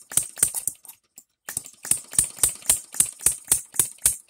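Engine DIY three-stroke model gasoline engine with 12V buzz coil ignition running, firing in an even string of sharp pops about four a second. It misses for about half a second near a second in, then catches and picks up again.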